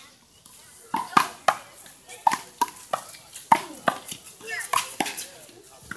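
Rubber handball rally in one-wall handball: the ball is slapped by hand, smacks off the concrete wall and bounces on the court. It makes a quick series of sharp smacks that starts about a second in.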